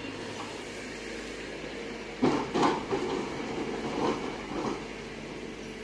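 Kobelco EC220E excavator's engine running steadily, and about two seconds in a run of loud clattering thuds lasting a couple of seconds, from a bucketload of dirt and stones dropping into a steel truck body.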